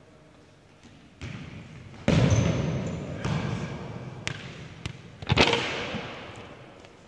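Indoor football being kicked and thudding around a large sports hall: several sharp thuds, the loudest about two seconds in and another just past five seconds, each ringing on in the hall's echo.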